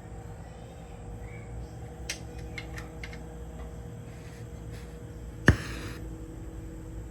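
Steady machine hum with a few light clicks, then one loud sharp knock about five and a half seconds in, followed by a short hiss.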